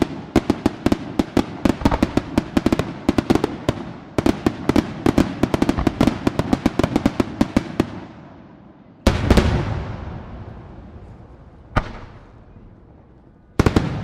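Aerial firework shells bursting overhead. For about eight seconds there is a rapid run of sharp cracks and reports, several a second. Then a heavy boom with a long rolling tail comes about nine seconds in, followed by two more single bangs near the end.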